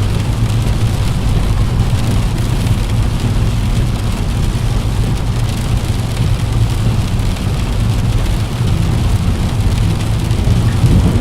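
Steady heavy rain pattering against a window pane, an even wash of rain noise with a low rumble beneath it.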